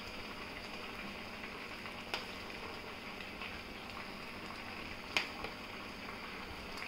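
A metal spoon scooping a cooked vegetable filling from a plastic container and spooning it into hollowed bell peppers, with a few light clinks about two and five seconds in, over a steady low hiss.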